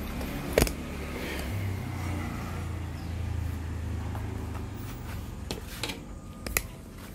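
Camera being handled and repositioned: a sharp knock about half a second in, fainter clicks, and another knock near the end, over a steady low rumble.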